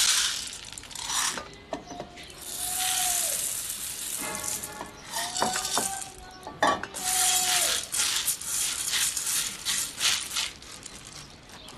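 Dry soybeans and mung beans poured from an enamel bowl into an aluminium basin, rattling and pattering against the metal in several pours.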